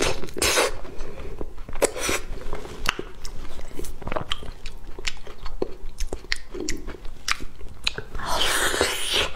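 Close-miked mouth sounds of eating soft durian flesh: biting and chewing with many quick wet clicks, and a louder noise lasting about a second near the end.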